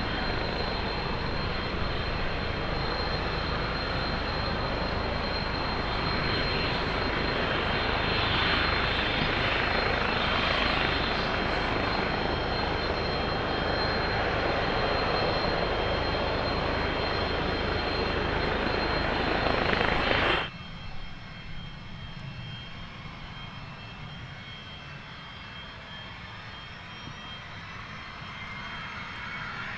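Cessna Citation business jet's turbofan engines running loudly on the ground during an engine adjustment run: a steady jet rush with a high whine on top. About two-thirds of the way in the power is cut back sharply, and the engines drop to a much quieter idling whine.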